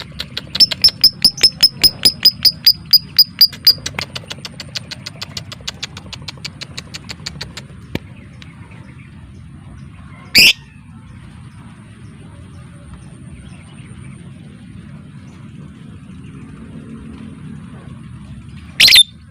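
Lovebird giving a fast run of sharp, clicking chirps, about four or five a second, the 'ngetik' (typing) call, which trails off into softer chirps by about seven seconds in. Later come two single loud shrill calls, one about halfway through and one near the end.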